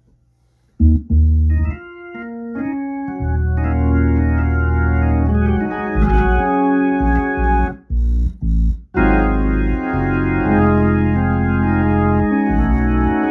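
Hammond organ played through a Leslie speaker cabinet: a rising run of notes about a second in, then full sustained chords with deep bass, with a few short stops between chords. The Leslie amplifier is running on a newly fitted 12AU7 tube that sits tightly in its socket, and it is playing better than with the old loose tube.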